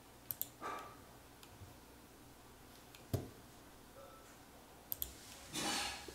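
Sharp computer-mouse clicks at a trading desk: a double click just after the start, a single click about three seconds in and another double click about five seconds in, followed near the end by a short burst of rustling noise.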